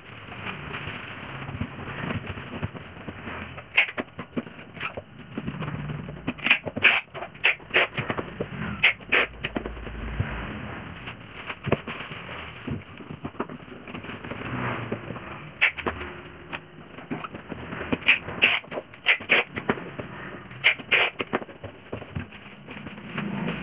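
A clear plastic bag crinkling and rustling as it is wrapped around a loudspeaker and handled into a cardboard box, in spells of sharp crackles.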